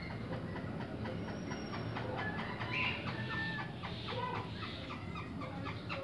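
Several caged partridges (teetar) calling with quick, repeated short chirps and clucks, growing busier after about two seconds.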